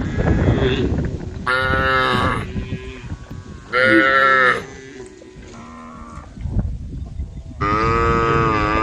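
Cattle mooing, calling to the herd: four separate long moos from more than one animal, one faint, the last starting near the end and still going.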